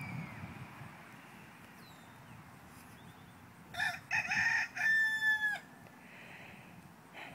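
A rooster crows once, loudly, starting about four seconds in and ending on a long held note.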